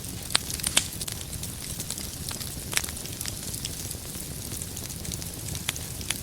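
Wood fire crackling, a steady hiss of burning logs broken by sharp pops: two in the first second, one near three seconds, and two more near the end.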